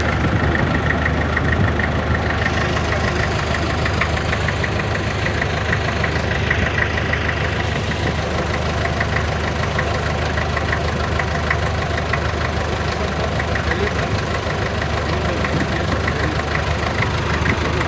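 Motor boat's engine running steadily underway, a constant low hum.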